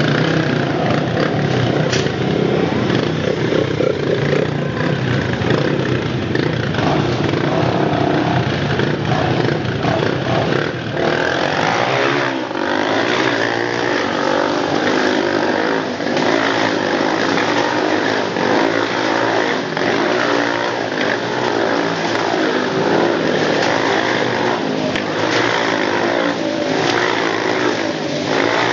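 Several Honda CRF dirt bikes revving hard as they circle inside a steel-mesh globe of death, their engines running together without a break.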